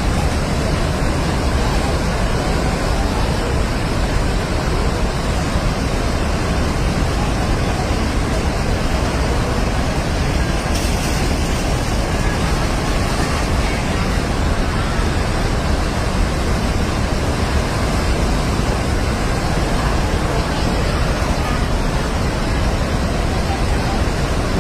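Rushing floodwater: a loud, steady roar that keeps up without a break.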